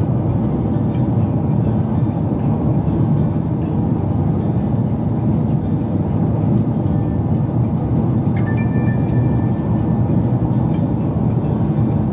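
Steady low rumble of airliner cabin noise, the engines and airflow heard from inside the passenger cabin, with a faint short tone about eight seconds in.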